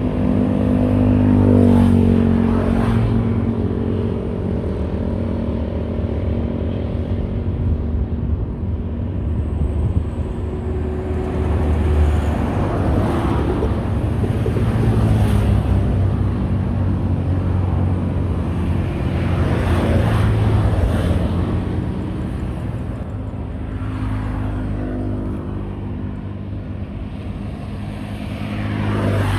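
Busy highway traffic close by: a steady rumble of car and heavy-vehicle engines and tyres, with one vehicle after another swelling up and passing.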